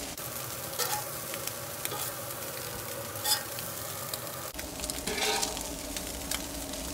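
Carne asada and cheese-topped corn tortillas sizzling steadily on a steel flat-top griddle, while a metal spatula scrapes and taps on the griddle as chopped meat is laid onto the tortillas. A few louder scrapes stand out about one, three and five seconds in.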